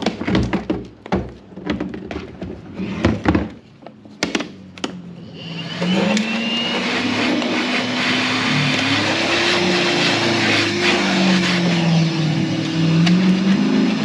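A loud car passing on the street, its engine revving, the pitch stepping up, dropping and climbing again. It sets in about five seconds in and drowns everything else. Before it come a few sharp knocks and clicks of parts being handled.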